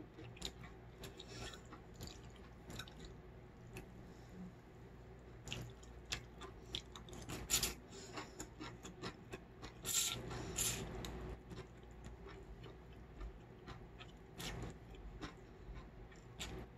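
Close-up eating sounds of cold buckwheat noodles in broth: wet chewing and mouth clicks, with several louder slurps of noodle strands about halfway through and again near the end.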